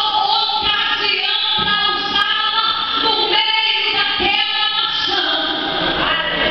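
A woman singing into a microphone over the hall's speakers, with a group of voices singing along.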